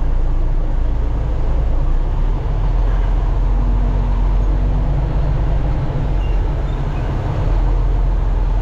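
Truck engine and road noise heard from inside the cab while driving: a steady, loud low rumble.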